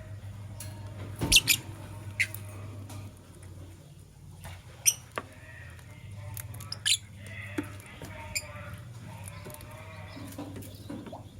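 Lovebirds giving sharp, short, high-pitched chirps and squeaks at irregular intervals, loudest just after a second in and again near five seconds.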